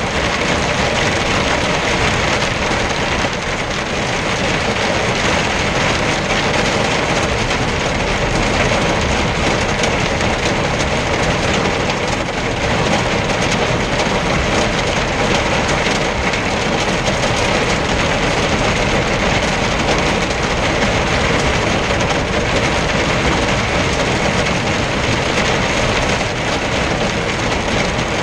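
Hail and rain drumming steadily on a truck's cab and windscreen, heard from inside the cab, mixed with tyre noise on the slushy road.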